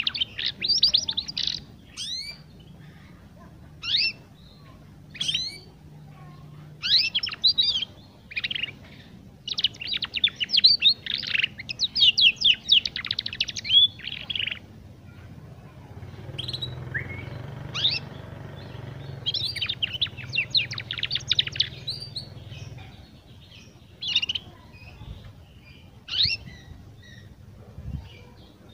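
Young domestic canary practising its song: bursts of rapid high twittering and trills, broken by single sharp falling chirps, the unfinished warbling of a young bird learning to sing.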